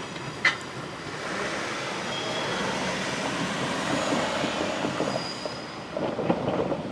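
KiHa 40-series diesel railcars rolling slowly through depot trackwork, with the steady running noise of wheels on rail. There is a short sharp wheel squeak about half a second in, faint brief squeals later, and a cluster of clicks and rattles near the end as the wheels pass over rail joints.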